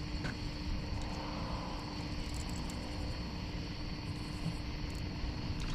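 Crickets chirring steadily in a thin high trill over a constant low rumble and hum.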